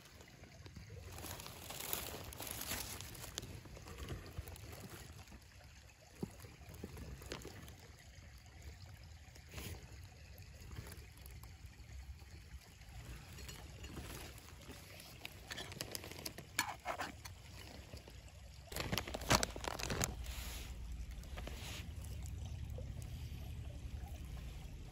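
Faint outdoor ambience: a low, steady rush like trickling water, with scattered rustles and small clicks. From about three-quarters of the way in it grows a little louder and busier, with sharper clicks.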